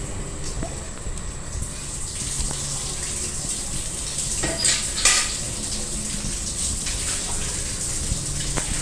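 Raw fish pieces being moved by hand from one steel bowl and dropped into another of wet tomato masala, with two sharp clinks of steel bowl about halfway through. A steady low hum runs underneath.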